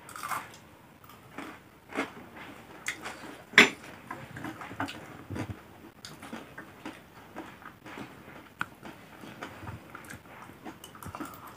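Eating sounds: chewing and biting into a crunchy noodle salad, with spoons tapping and scraping, heard as scattered short clicks. The sharpest click comes a little over three and a half seconds in.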